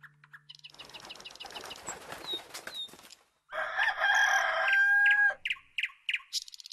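Rooster crowing once, a long cock-a-doodle-doo about halfway in.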